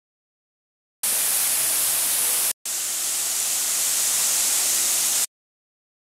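Steady hiss of fountain water jets spraying and splashing. It starts abruptly about a second in, breaks off for a moment about 2.5 s in, and cuts off abruptly near the end.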